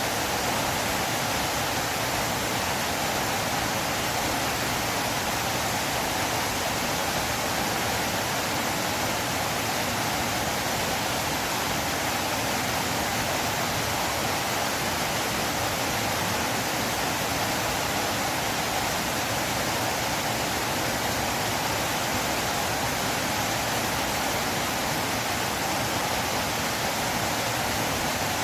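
River water flowing, a steady, unchanging rush.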